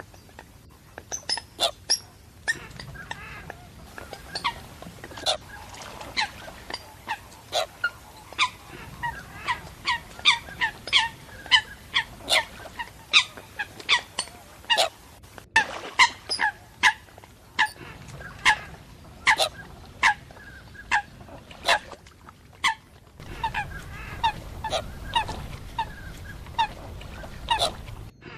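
Water hens (rail-family waterbirds) calling over and over: a long run of short, sharp, high calls, one to three a second, some much louder than others. A low rumble grows stronger near the end.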